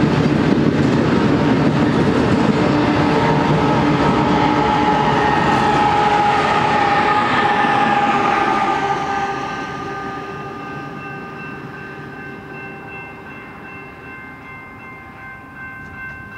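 Double-stack intermodal freight train passing, its rumble and rattle loud for about eight seconds and then fading away as the tail end goes by. A set of steady high-pitched tones lingers and fades slowly.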